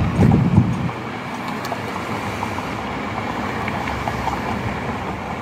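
Steady vehicle noise: a loud low rumble in the first second, then an even hiss.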